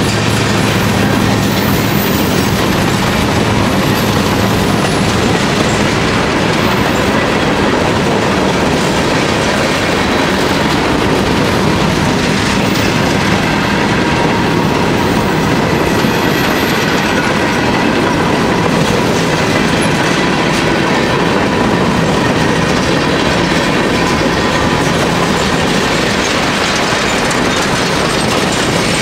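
Freight cars (covered hoppers, gondolas and boxcars) rolling past at close range: a loud, steady rolling rumble of wheels on rail, with a thin steady tone running through it.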